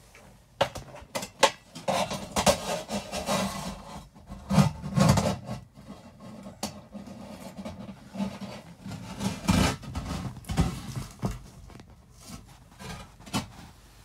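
Close handling noise while working on sheet-metal HVAC ductwork: irregular rubbing and scraping with sharp clicks and knocks, loudest a little over four seconds in and again near ten seconds.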